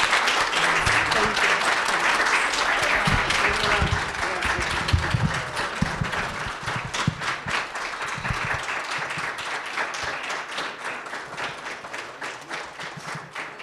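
Audience applauding: many people clapping, full for the first several seconds, then slowly dying down toward the end.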